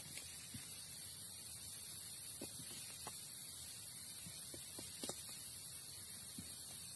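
Machete blade shaving and scraping a stick into kindling, a few soft irregular scrapes and taps, over a steady high-pitched hiss.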